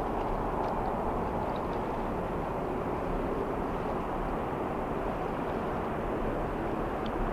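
Steady low rumble of jet airliner engines, with no rise or fall in level.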